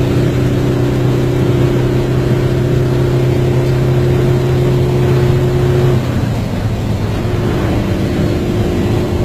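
Kenworth cabover semi truck's diesel engine running with a steady drone, which breaks off and settles lower and slightly quieter about six seconds in.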